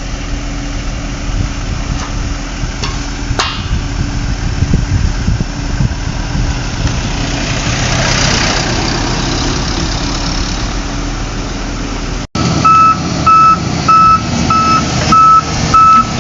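Heavy construction machinery engine running steadily. After a cut near the end, a vehicle's reversing alarm beeps loudly about once every 0.6 seconds over the engine.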